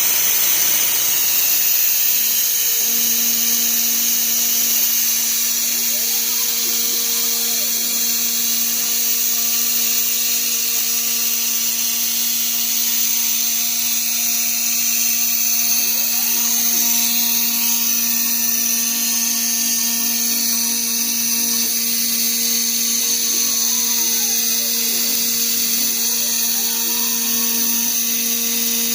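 CNC router running, its spindle giving a loud, steady high-pitched hiss. Steady motor hum tones join about two seconds in, and a few whines glide up and down in pitch.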